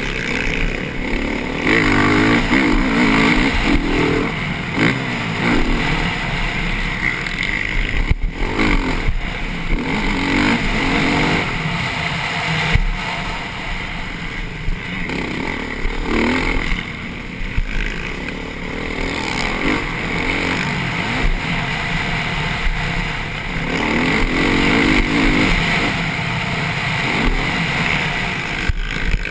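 Motocross bike engine heard from on board, revving up hard and dropping back again and again as the rider accelerates out of corners and shifts, with wind noise over it.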